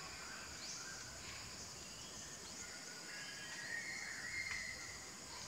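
Steady high-pitched insect drone with scattered faint bird chirps and short calls, a brighter call about four seconds in and a faint click just after it.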